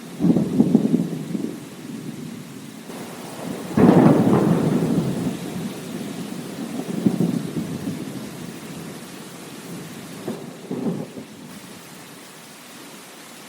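Thunder rumbling over steady rain: a rumble right at the start, a louder peal about four seconds in that rolls away over several seconds, then weaker rumbles later.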